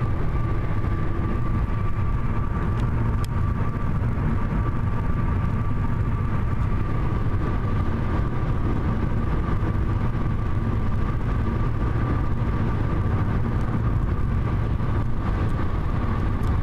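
Steady road and engine noise of a car cruising at highway speed, heard from inside the cabin: a constant low rumble with a faint steady high whine running through it.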